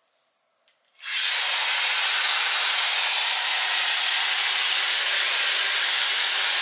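Shark FlexStyle air styler with its auto-wrap curler attachment switched on about a second in, then running with a steady rush of blowing air.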